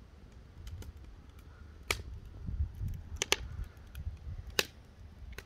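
Three sharp clicks about a second and a half apart, over a steady low rumble.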